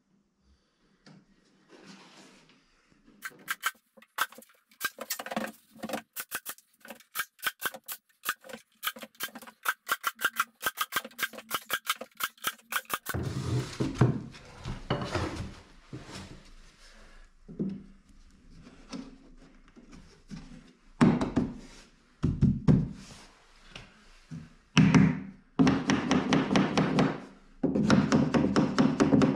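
Small hammer tapping nails through MDF panelling strips into the wall. Quick light taps with a ringing note come at several a second through the first half, then louder, duller knocks come in clusters.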